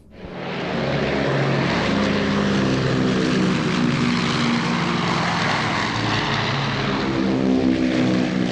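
Twin-engine propeller water bomber making a low pass over the runway while dropping its water load, its engines and propellers swelling up in the first second and then running loud and steady.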